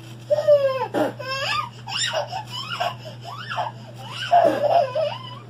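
High-pitched laughter and squeals in several bursts, sweeping up and down in pitch, over a steady low hum.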